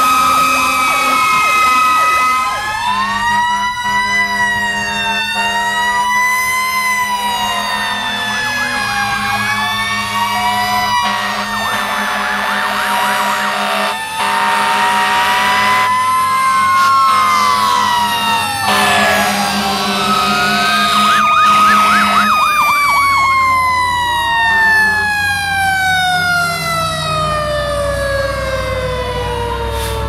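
Fire engine sirens wailing up and down, several at once, over a steady low air horn blast, all loud. Near the end a siren winds down in one long, slow falling pitch.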